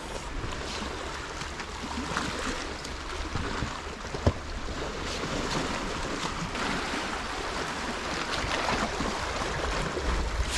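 Sea water washing on the foreshore, with wind rumbling on the microphone and one sharp tap about four seconds in.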